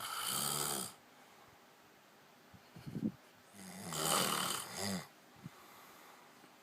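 A sleeping man snoring: two long snores a few seconds apart, with a short, smaller breath sound between them.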